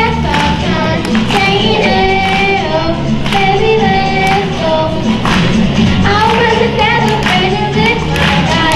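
A child singing a solo into a microphone over a pop backing track with a steady beat.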